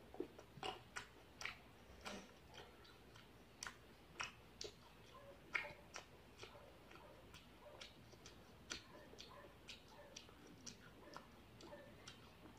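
Faint, irregular clicks and smacks of a boy chewing grapes, close to the microphone.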